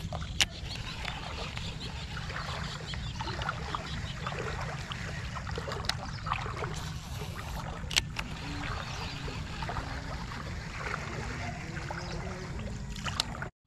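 Shallow floodwater sloshing around the legs of a wading angler, over a steady low rumble, with a few sharp clicks.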